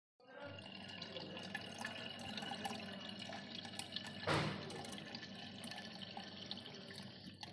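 Water dripping and trickling inside a concealed toilet cistern, with a steady wash of small drips. A single louder bump comes about four seconds in.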